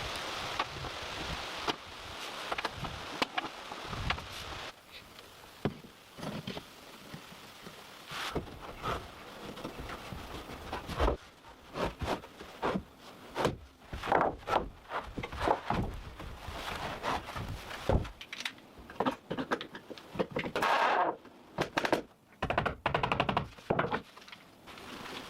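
A run of irregular knocks and thuds with short scrapes between them, coming thicker and faster in the second half.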